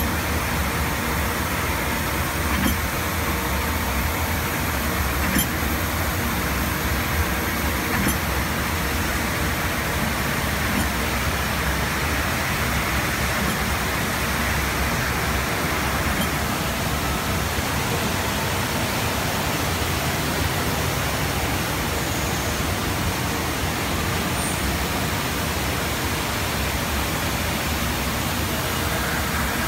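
Citizen K16 16 mm Swiss-type sliding headstock automatic lathe running, a steady mechanical noise with three sharp clicks in the first eight seconds. A higher hiss in the noise eases off about sixteen seconds in.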